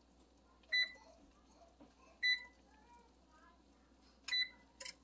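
Oven control panel's touch keypad beeping as the bake temperature 425 is entered and Start is pressed: three short, high single beeps one to two seconds apart, with a brief extra blip just after the third.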